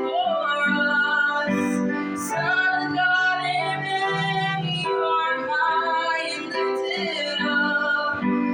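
Worship song: a woman's voice singing long, held melodic phrases over musical accompaniment.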